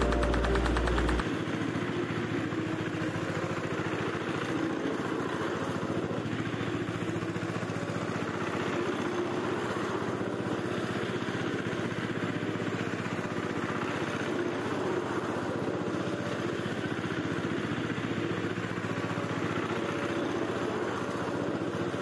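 Power tiller's single-cylinder diesel engine running steadily as the tiller is driven back and forth over spread rice paddy to thresh the grain. A heavier low rumble drops away about a second in.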